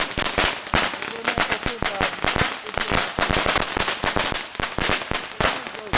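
A 10,000-round firecracker string going off in a continuous rapid crackle of sharp pops, many each second at uneven spacing.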